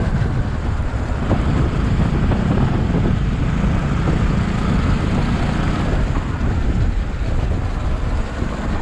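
Bajaj Pulsar motorcycle riding along at a steady pace, its engine running under a steady, low rumble of wind on the microphone.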